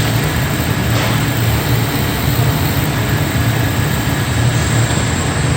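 Steady machinery noise on a factory floor: a constant low hum under an even hiss, with no distinct knocks or clicks.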